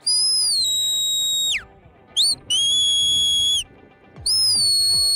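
Shepherd's whistle commands to a working border collie: three loud, shrill whistles. The first is a long held note that steps down and swoops down at its end, the second a short blip and then a lower steady note, and the third another long note that falls away at its end.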